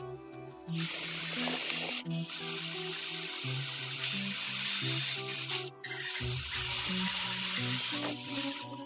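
Cordless drill with a thin twist bit boring small holes through a thin plastic case, its motor whine stepping up and down in pitch with the trigger. It runs in three stretches, with a brief break about two seconds in and another near five and a half seconds.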